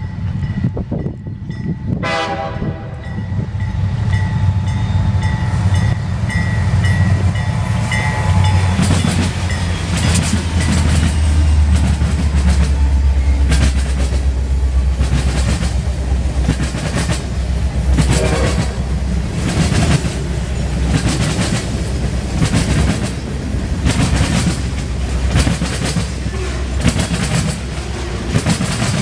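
Freight train locomotive horn sounding about two seconds in and held for roughly six seconds, as the BC Rail GE C40-8M and CN EMD SD75I diesel locomotives approach and pass with a heavy low engine rumble. Loaded grain hopper cars then roll by with a steady clickety-clack of wheels over rail joints.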